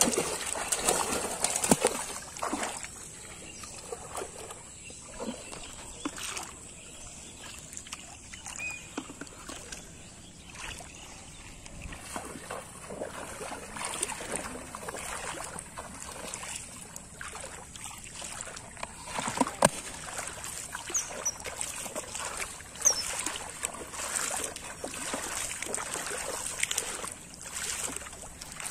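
Shallow water splashing and sloshing as a person wades knee-deep and grabs at a catch by hand. The heaviest splashing comes in the first couple of seconds, with a few sharper splashes later on, over a steady high-pitched hiss.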